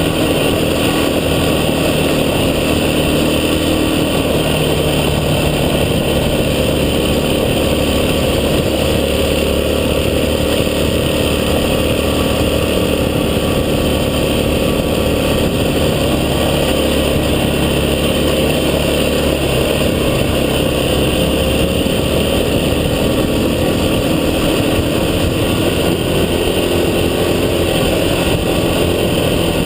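Off-road vehicle engine running steadily under way, its pitch drifting slightly with a constant noise of travel over it.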